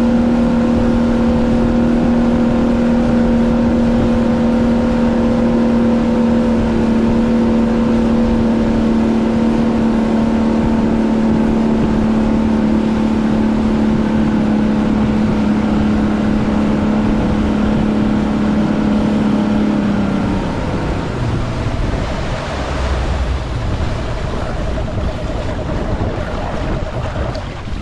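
Boat motor running at a steady speed with water rushing along the hull; about 20 seconds in the motor note stops and the boat slows, leaving quieter water and wind noise with a fainter, fluttering hum.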